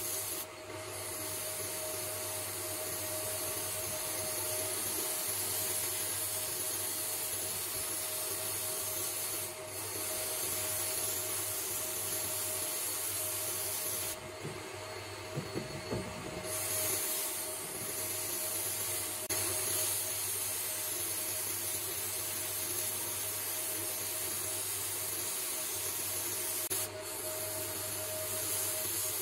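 Sandblast gun in a blasting cabinet hissing steadily as abrasive media strips the wooden saw handle, over a steady hum. The blast stops briefly a few times, longest for about two seconds halfway through, with a few light knocks in that pause.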